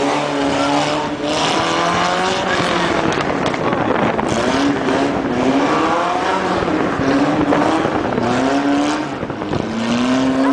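Rally car engine revving up and falling back several times in quick succession as the car is thrown through tight turns, with tyre squeal and scrubbing underneath.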